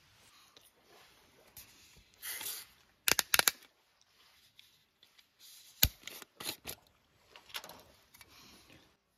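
Small handling sounds of a screw-capped aluminium bottle can of coffee being opened: a quick cluster of sharp clicks about three seconds in, a single louder knock near the middle, and a few lighter clicks after it, over soft rustling.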